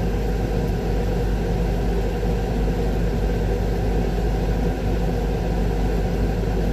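Heavy diesel engine idling steadily, an even low drone with no change in pitch.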